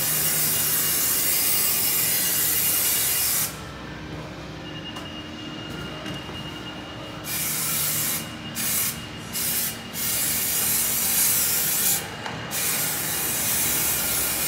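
Aerosol can of spray adhesive hissing as contact glue is sprayed onto a carpet panel: one long spray of about three seconds, a pause, then a run of short squirts and longer sprays.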